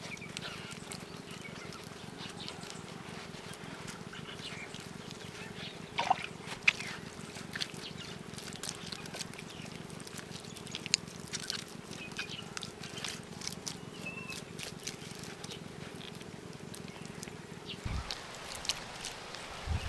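Wet clay being pressed and smoothed by hand, with a few short soft slaps and squelches, over a steady low hum that stops near the end.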